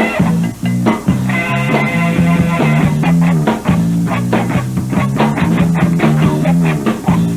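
Rock band playing an instrumental passage with no singing: sustained electric guitar notes over bass, with regular drum hits from about three seconds in.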